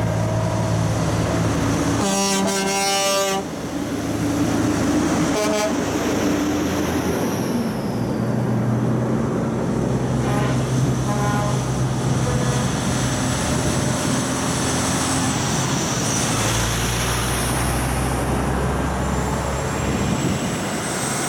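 Heavy trucks driving past in convoy, their diesel engines giving a steady low drone. A truck horn sounds one long blast about two seconds in, then a short toot a couple of seconds later and fainter toots around ten seconds in.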